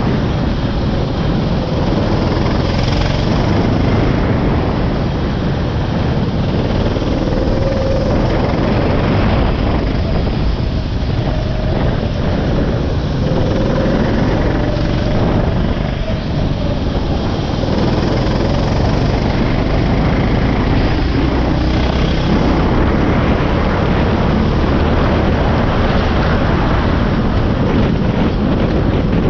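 Go-kart engine revving up and down, its note faint beneath loud, steady wind rush on the microphone.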